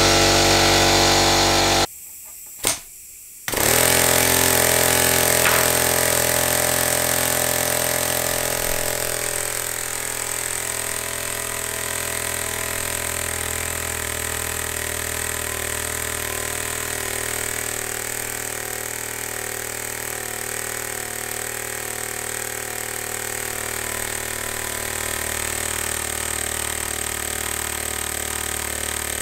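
3D-printed compressed-air piston engine running fast on compressor air, a steady pitched machine sound with air hissing from a leaking connector. It stops about two seconds in, gives one short burst, then runs again from about three and a half seconds in and settles a little quieter.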